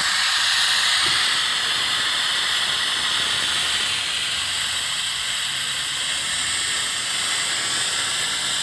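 Pneumatic oil extractor hissing steadily as compressed air drives its vacuum generator, drawing a vacuum to suck engine oil out through a hose in the dipstick tube.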